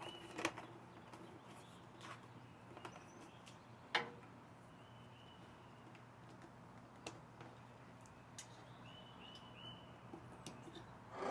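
Faint, scattered clicks and knocks of parts and hand tools being handled during elliptical assembly, the sharpest about four seconds in. A few short, high chirping squeaks sound near the start, about five seconds in and again near nine seconds.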